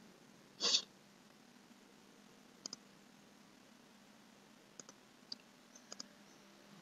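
A short burst of noise just under a second in, then a few faint, sharp computer-mouse clicks, some in quick pairs, over faint room tone.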